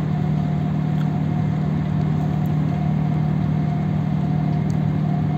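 Steady low hum of ship's diesel machinery, with a thin steady whine above it.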